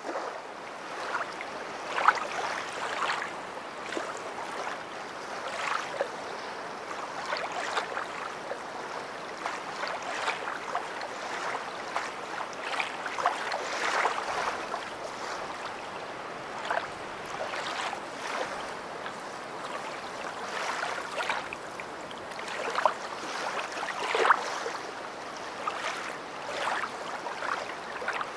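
River water flowing: a steady rush with frequent irregular splashes and gurgles.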